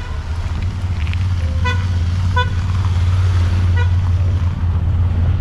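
A motor vehicle running with a steady low rumble, with several short horn toots in the first four seconds.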